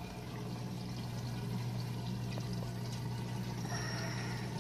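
Reef aquarium's circulating water running and splashing steadily, over the steady low hum of its pump.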